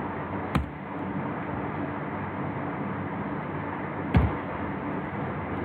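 Computer keyboard keystrokes: two sharp key clicks, about half a second and about four seconds in, and a few fainter ticks, over a steady hiss and low electrical hum.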